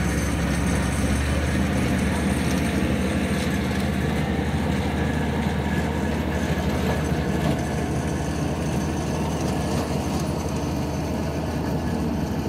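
Steady low hum of an engine running at an even speed.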